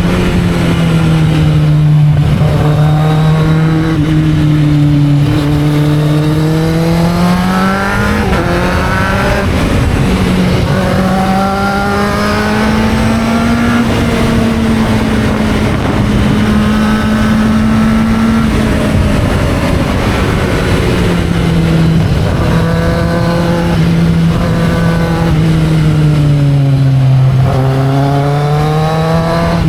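Kawasaki Z750 motorcycle engine under way, its note rising and falling slowly with the throttle and gears, with a dip and climb near the end. Wind and road noise rush underneath.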